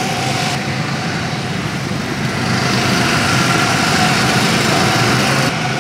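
Gasoline go-kart engines running as karts lap a track: a steady, continuous engine drone with a low hum.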